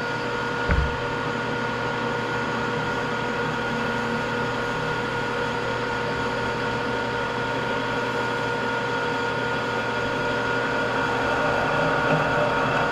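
Metal lathe running steadily with a constant whine, while a center drill is fed into the end of an iron bar.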